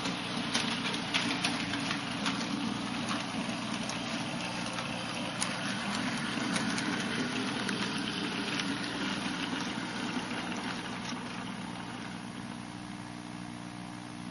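Model train running on the layout's track: a steady motor hum with the wheels clicking over rail joints, growing quieter as the train slows to a stop.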